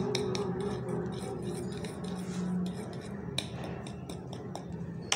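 A metal spoon beats flour into egg and milk batter in a plastic bowl, with quick, irregular clicks and scrapes of the spoon against the bowl.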